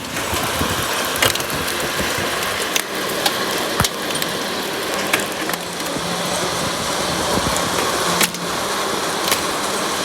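Hailstorm: a steady rush of hail and rain, with many sharp clicks of hailstones striking hard surfaces.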